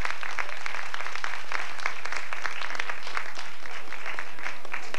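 Audience applauding: a steady patter of many separate hand claps.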